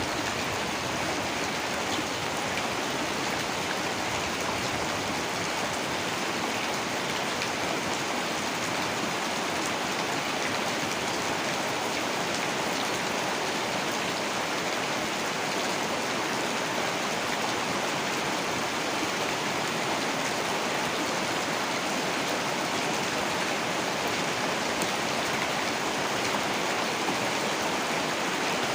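Heavy rain falling steadily, an even unbroken hiss of drops on surfaces.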